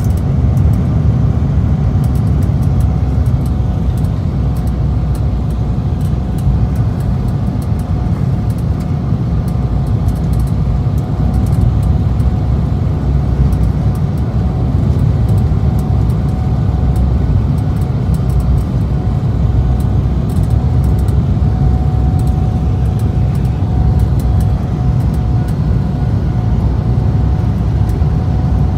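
Cabin noise inside an Embraer E190 airliner: a steady low rumble of airflow and its turbofan engines, with a thin steady tone above it.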